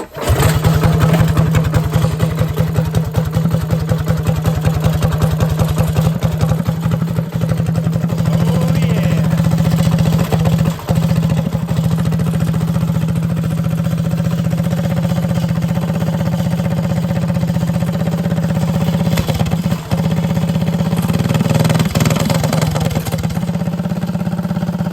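Predator 212 single-cylinder overhead-valve engine, newly fitted to a minibike, running steadily on its first start-up. It dips briefly twice and picks up speed slightly near the end.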